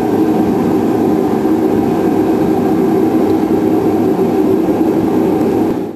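Steady, loud mechanical hum with a low rumble, unchanging until it cuts off suddenly at the end.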